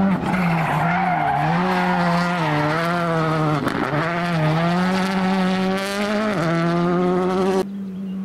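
Rally car engine running hard, its pitch rising and falling over and over as the revs climb and drop through gear changes and lifts, with tyre noise under it. The loud sound cuts off suddenly near the end, leaving a fainter engine note that falls in pitch.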